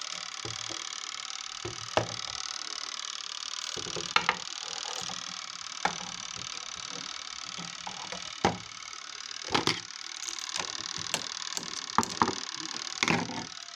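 Scattered sharp clicks and knocks of hands and tools working on a semi-automatic washing machine's spin-side lid switch and brake, over a steady background hiss. The spin motor is not running.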